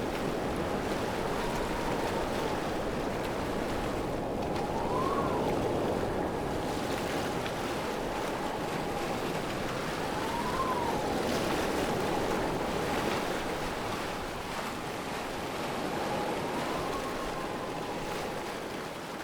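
Steady rushing of a waterfall: continuous water noise with a faint sustained tone underneath that swells up and back down a few times.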